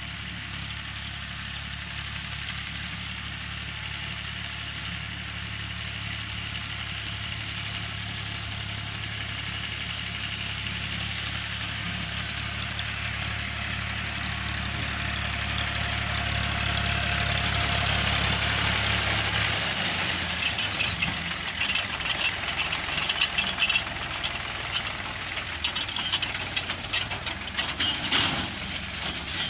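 Powertrac 445 tractor's diesel engine running steadily as it pulls a paddy reaper through the crop, growing louder as it draws near. About two-thirds of the way through the steady hum gives way to an irregular crackling clatter with sharp peaks, as the reaper cuts close by.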